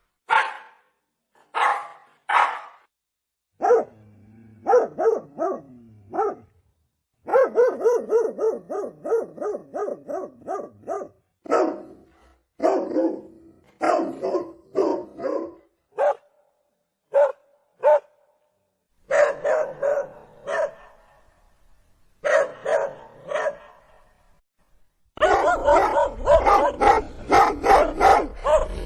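Pomeranian barking in quick runs of high, yappy barks, several a second, with short pauses between runs. Near the end it barks without a break over a low rumble.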